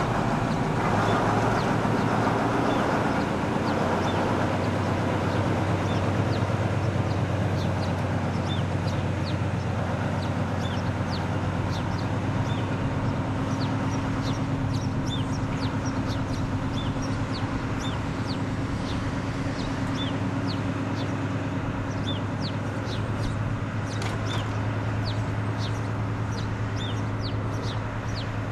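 Small diesel shunting locomotive's engine running at a steady low note as it moves slowly, with birds chirping repeatedly over it.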